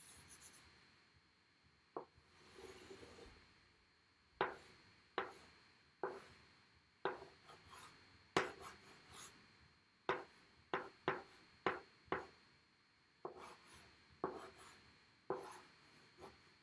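Chalk drawing on a blackboard: a run of short, sharp strokes and taps, with one longer stroke about two seconds in.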